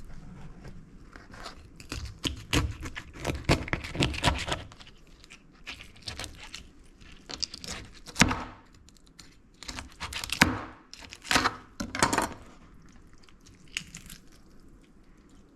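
A knife working on a raw fish being cleaned, making irregular scraping, tearing and crunching strokes in clusters with short pauses between.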